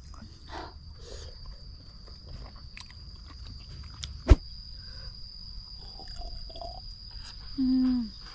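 Close-up eating sounds: chewing and utensils scraping, with one sharp clack a little past the middle and a short hum falling in pitch near the end. A steady high-pitched insect buzz runs underneath.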